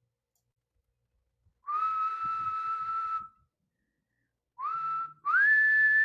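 A person whistling three notes, each sliding up into a held pitch: a long note, a short one at the same pitch, then a longer, higher one near the end.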